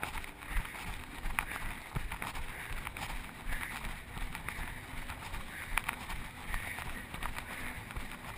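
A runner's irregular footfall thuds and knocks, heard through a chest-mounted GoPro, over a steady rush of wind on the microphone.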